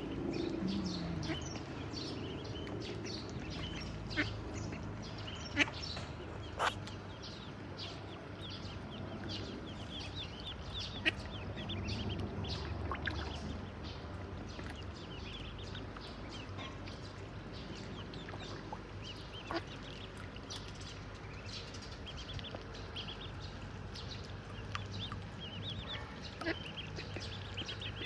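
Ducklings peeping: a steady stream of short, high calls overlapping one another, with a few sharp taps in between.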